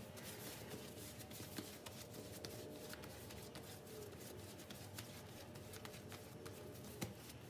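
Hands rounding a ball of soft bread dough on a floured granite countertop: faint soft rustling with scattered light taps and clicks.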